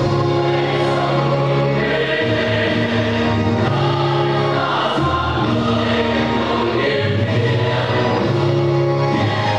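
Choir singing over a musical accompaniment, with held notes over a steady bass line that changes note every second or two.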